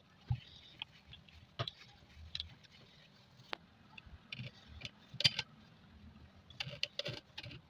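Irregular clicks and light knocks from a sewing machine and its small parts being handled during cleaning and maintenance. The loudest knock comes about five seconds in, and a cluster of clicks follows near the end.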